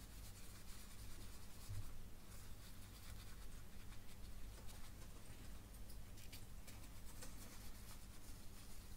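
Faint, irregular scratchy rustling of a paper tissue rubbed between the fingers as a small torch part is wiped clean.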